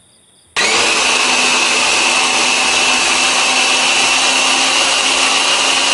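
Small electric chopper motor switched on about half a second in, whirring steadily with a constant whine as its blades chop red chilies, garlic and spring onions, then cut off sharply at the end.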